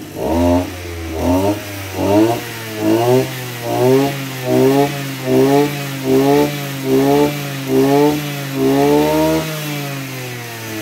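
Maruyama MB2630 26cc two-stroke brush cutter engine, its blade spinning free, revved in quick repeated throttle blips about once a second, each rising sharply and dropping back. Near the end it is held at high revs a little longer, then settles back to idle. The engine picks up revs quickly and cleanly.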